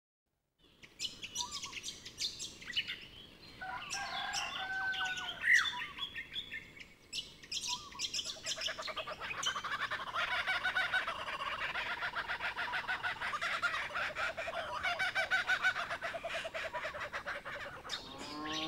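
Birds chirping and twittering, with a few sliding whistled calls in the first half; from about eight seconds a dense, fast trilling chorus takes over.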